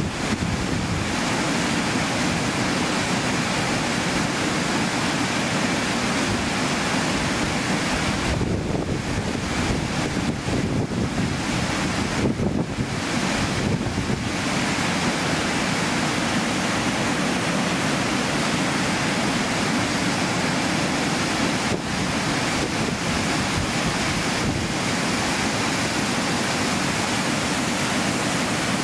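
Steady rushing of a mountain waterfall.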